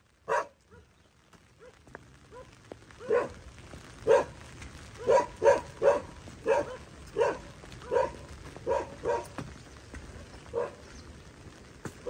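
A dog barking repeatedly: about a dozen short barks at irregular intervals, a few faint ones first and then louder ones through the middle.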